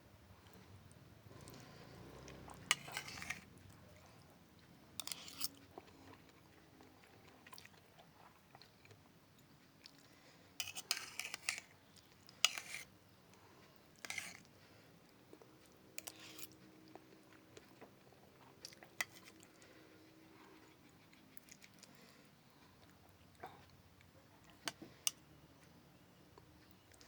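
Close-miked chewing and mouth sounds of someone eating pepes ikan mas, spiced carp cooked in banana leaf. Irregular wet smacks and clicks come in clusters, busiest about ten to fourteen seconds in.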